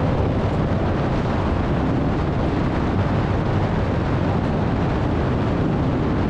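Harley-Davidson V-twin motorcycle engine running steadily on the road, mixed with a constant rush of wind over the microphone.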